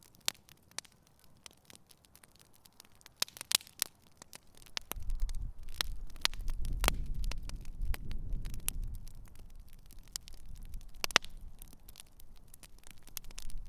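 Campfire crackling, with scattered sharp pops and snaps. About five seconds in, a low rumble comes in under the crackle and eases near the end.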